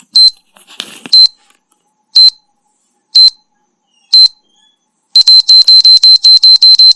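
Electronic beep sound effect from a PowerPoint countdown timer: five short high beeps one second apart, one for each count, then from about five seconds in a fast run of beeps, about eight a second.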